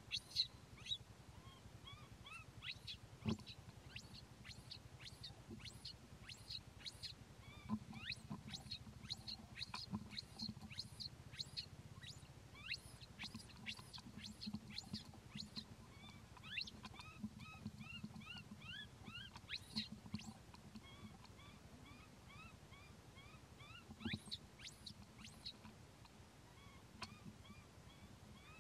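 Baby macaque calling with many short, high, rising squeaks. A few louder sharp cries stand out at intervals.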